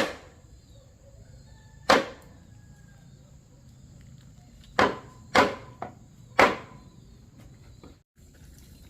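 A series of sharp knocks or strikes, six in all: one at the start, one about two seconds in, and four closer together near the middle, with a steady high insect drone underneath.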